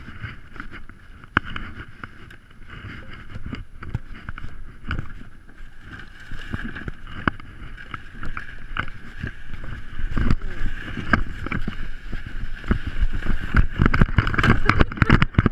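Footsteps crunching in snow, with a plastic sled dragged behind on a rope and scraping over snow and ice. It gets louder and busier in the last five seconds or so.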